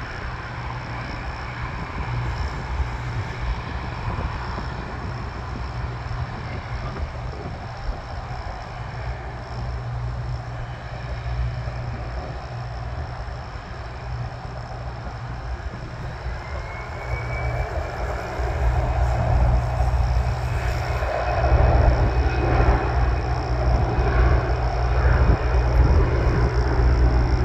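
Business jet turbofan engines whining and rumbling as the jets taxi. About two-thirds of the way in a rising whine sets in and the jet noise grows louder toward the end.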